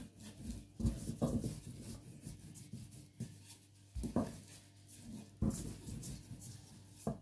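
Wooden rolling pin rolling out dough on a floured cloth-covered surface: rubbing and rolling noise with irregular dull knocks as the pin is pushed and repositioned.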